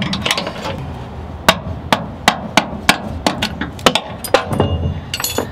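Sharp, irregular metal-on-metal knocks, about a dozen, as a flat-blade screwdriver is driven against the small metal clip holding a rear brake hose to its frame bracket, working the clip off.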